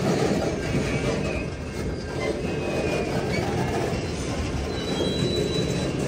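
Freight train cars rolling past with a steady rolling noise. A few short, high wheel squeals come through, about two seconds in and again around the fourth to fifth second.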